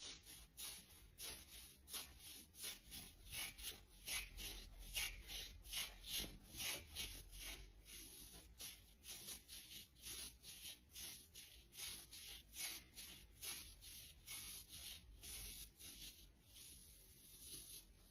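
Nylon hosiery being rubbed: quiet, even rubbing strokes repeated about two to three times a second.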